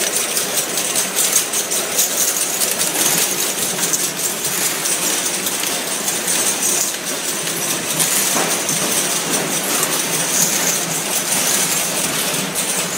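A running cartoning machine, giving a dense, steady clatter of small metallic clicks from its conveyors and mechanism.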